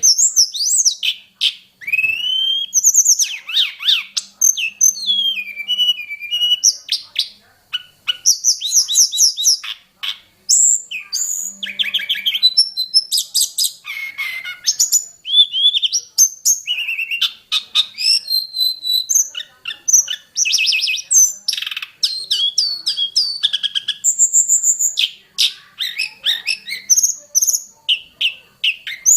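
A tledekan gunung songbird singing a long, rapid, varied song of high whistled phrases, sweeping notes and fast trills, many of them borrowed from other birds, with only brief pauses.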